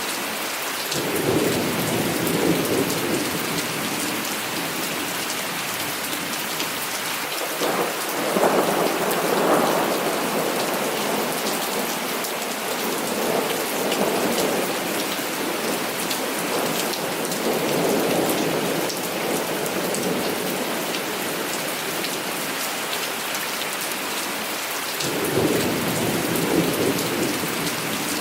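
Heavy rain falling steadily, with about five rolls of thunder rumbling through it. The loudest roll starts suddenly about eight seconds in.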